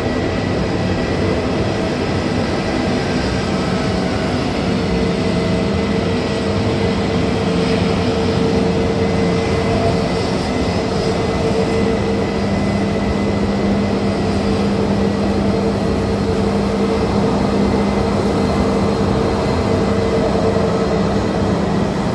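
Airliner jet engines running at idle: a steady whine and hum with several held tones, the lower hum growing stronger about halfway through.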